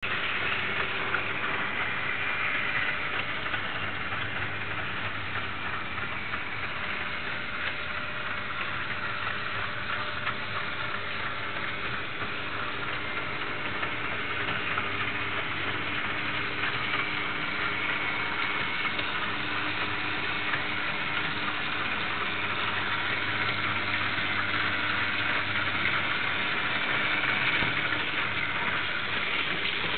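A 1937 TRIX 14 V AC electric model train running on its track, the locomotive's motor and the wheels making a steady whirring rattle with a low hum. It grows a little louder near the end as the train comes closer.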